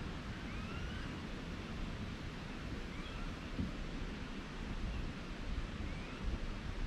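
Outdoor nature ambience: a steady low rushing noise with a few faint, short chirping calls scattered through it.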